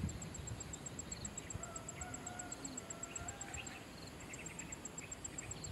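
A rooster crowing faintly for about two seconds, starting about a second and a half in, over scattered bird chirps and an insect's rapid, very high, even ticking.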